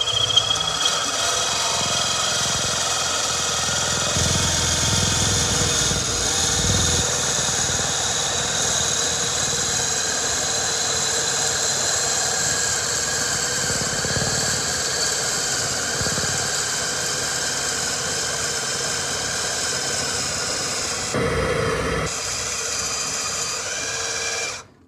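Cordless drill motor running steadily at speed, spinning a wooden dowel through a dowel-cutting die that shaves it down to a 3/8-inch rod. The steady whine with its several tones stops suddenly just before the end.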